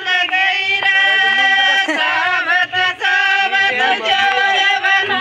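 A group of women singing a Meena folk song (geet) together, holding long, sliding notes, with a few sharp hand claps.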